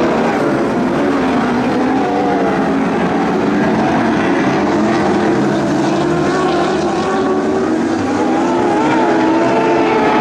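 Several Lightning Sprints sprint car engines running hard together as the pack laps the dirt oval, their pitches overlapping and wavering up and down as drivers lift and get back on the throttle through the turns.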